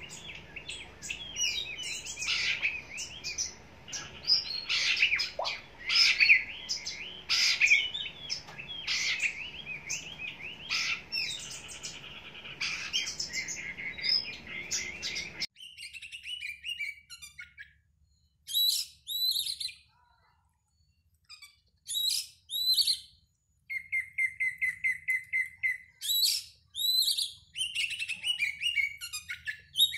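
Oriental magpie-robin (kacer) singing a varied song of whistles and chirps, dense and over a background hiss at first. About halfway the recording changes abruptly to sparser, separated phrases, with a fast run of repeated notes near the end.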